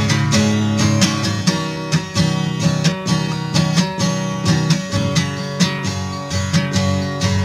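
Acoustic guitar strummed in a steady rhythm of about two strums a second, with no singing.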